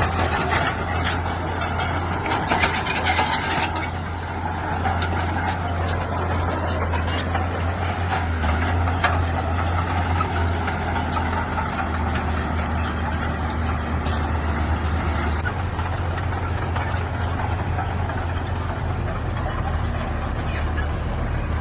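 Heavy diesel earthmoving machinery running steadily under a constant low engine drone, with scattered clanks and knocks.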